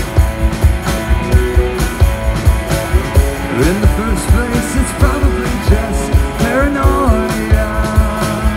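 Live rock band of drum kit, bass guitar and electric guitars playing an instrumental passage over a steady beat. In the middle a lead part slides up and down in pitch.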